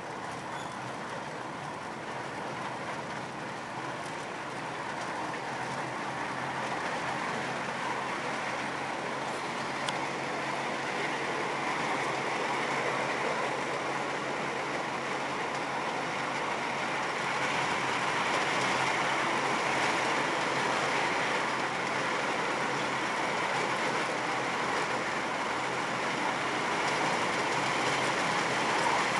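Miniature ride-on park train running along its track, heard from one of its cars: a steady rolling noise of the wheels on the rails, growing a little louder partway through.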